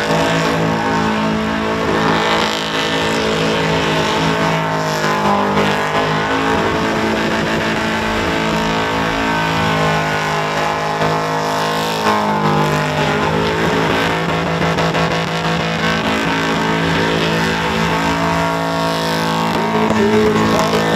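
Holden Commodore ute doing a burnout: its engine is held at high revs with the rear tyres spinning, and the revs waver, dipping and rising again a couple of times.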